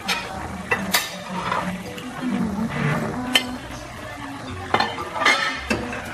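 Metal spoon clinking and scraping against a cooking pan as sliced bitter melon is added to a pan of vegetable stew and stirred, with several sharp separate clinks.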